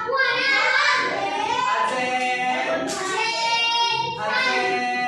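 A group of children singing together, with several long held notes.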